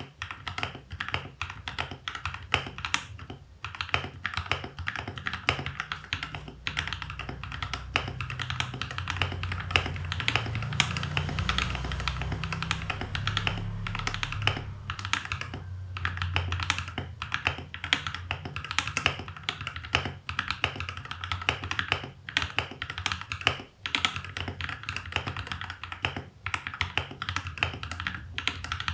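Continuous fast typing on a mechanical keyboard fitted with burned-in, lubed KTT Mint switches and FSA-profile keycaps, the keys clacking in an unbroken stream.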